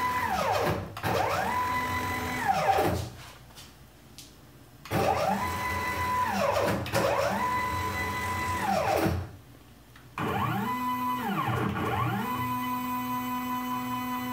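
Stepper motors of a homemade wooden CNC router running test moves. Each move is a whine that rises in pitch as the motor speeds up, holds a steady tone, then falls as it slows to a stop. There are two moves, a short pause, two more moves, another pause, and then a longer move that settles on a lower steady tone.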